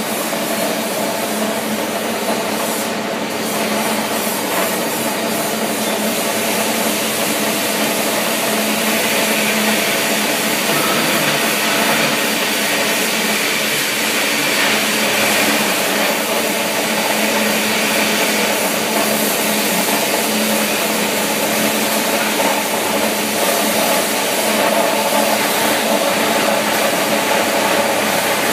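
Gas torch burning steadily with a constant hiss, with a few steady low hums underneath.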